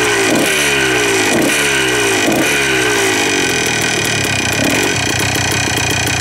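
1982 Yamaha IT175's single-cylinder two-stroke engine running on its first start after a carburetor clean-out. The throttle is blipped about once a second, so the revs jump and sag back each time, then it settles to a steadier idle after about three and a half seconds.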